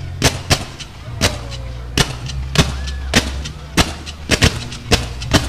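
Aerial fireworks shells bursting in quick succession: about a dozen sharp bangs, coming closer together near the end, over a steady low rumble.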